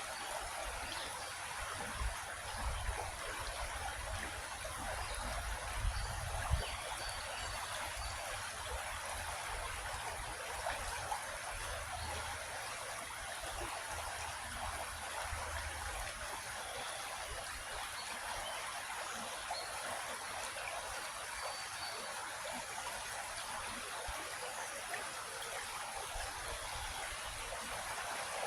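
Creek water flowing and trickling steadily, an even rushing hiss, with some low rumbling in the first half.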